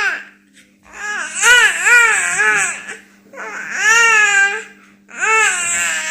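Five-month-old baby vocalizing in three long, high-pitched, cry-like calls that waver up and down in pitch, with short gaps between them.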